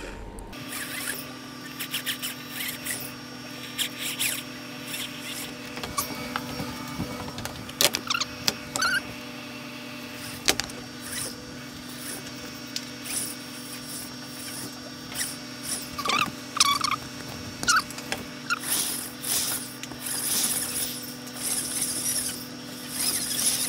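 Hand work on the bolt holes of a wooden skateboard deck: scattered clicks and knocks with a few short squeaks, as the holes are reamed out so the bolts will slide through. A steady low hum sits underneath.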